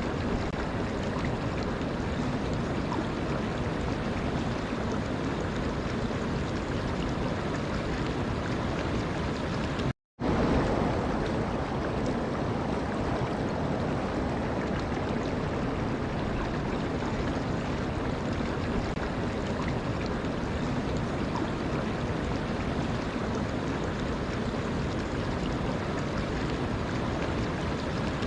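Water rushing steadily, an even wash of sound that cuts out abruptly for a moment about ten seconds in, then resumes.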